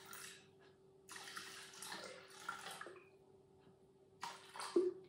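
Water poured from a plastic bottle into a Thermomix's stainless steel mixing bowl, in three spurts with short pauses between them, over a faint steady hum. A brief bump near the end.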